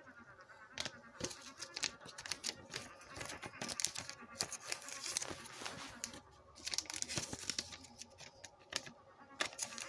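Trading-card packaging being torn open and handled: tearing and crinkling of wrapper and cardboard, with many small clicks and rustles that come thickest in the middle of the stretch.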